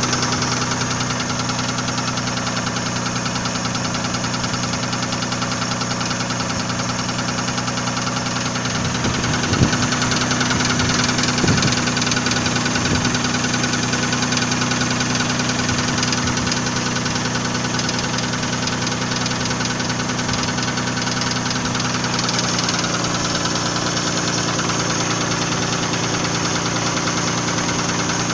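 Nissan VG30E 3.0-litre V6 running steadily with a fast, regular knock in time with the engine. The cause is unknown to the owner, who wonders whether it is the hydraulic lifters, a connecting rod or the pistons.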